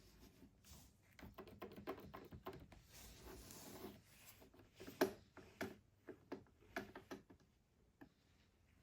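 Plastic Lego pieces being handled: a run of small clicks, rattles and rubbing, with a few sharper clicks between about five and seven seconds in.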